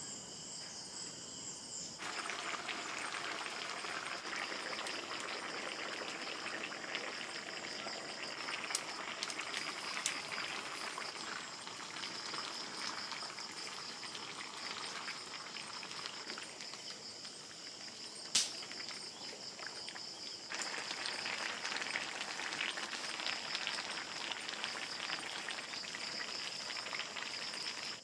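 Crickets chirring steadily and high-pitched, under a louder even hiss that comes in suddenly about two seconds in, drops away briefly past the middle and returns, with a single sharp click.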